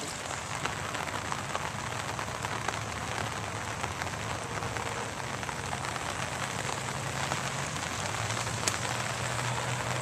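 Steady rain pattering, a dense even patter of many small drops, with a faint low hum underneath.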